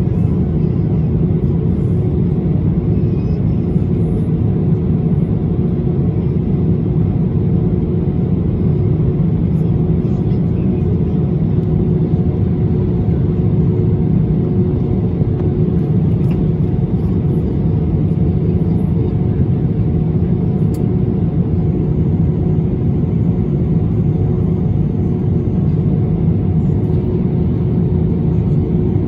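Airbus A321-200 cabin noise on the ground: the jet engines run at a steady idle, giving an even low rumble with a steady hum over it, with no rise in power.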